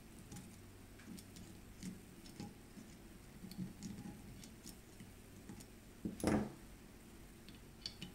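Faint small clicks and taps of steel gun parts being handled and fitted into an Ithaca 4E shotgun receiver, with one louder knock about six seconds in.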